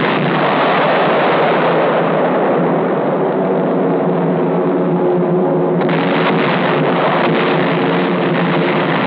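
Continuous rumbling roar of a heavy bombing raid on an old, narrow-band newsreel soundtrack, with a steadier drone in the middle and crackling bursts of explosions picking up again about six seconds in.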